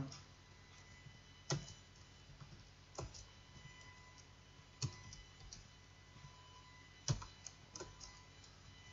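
Scattered computer keyboard key presses, single clicks a second or two apart with a few quicker ones near the end, over a faint steady high hum.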